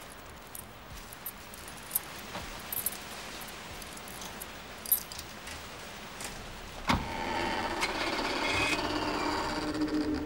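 A bunch of keys jangling, with small clicks as a key works the lock of an old front door. About seven seconds in there is a sharp click, then a long, drawn-out creak as the heavy door swings open.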